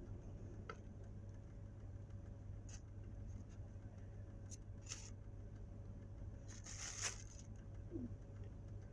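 Faint scratching and handling noises as fuzz is picked off a small fuzzy toy figure, with a few light clicks and a louder scrape about seven seconds in, over a steady low hum.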